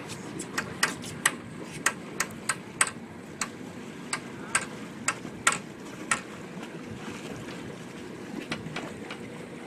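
Steady low rumble of a fishing boat on open water, with a run of sharp, irregular clicks through the first six seconds or so and a few fainter ones near the end.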